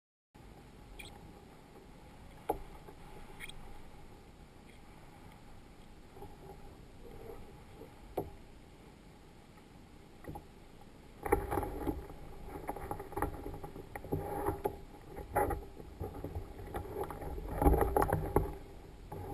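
Water lapping and knocking against a fishing kayak's plastic hull, with scattered sharp knocks, growing louder and busier about eleven seconds in.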